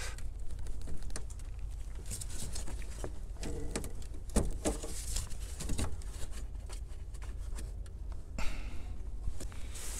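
Irregular clicks, taps and rustling of gloved hands working behind a headlight housing, unplugging the plastic wiring connector and removing the headlight bulb.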